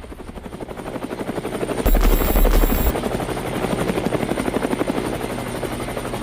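Helicopter rotor sound effect in a pop song's break: a fast, even chopping beat of the blades that grows louder over the first two seconds. A deep bass note sounds for about a second, about two seconds in.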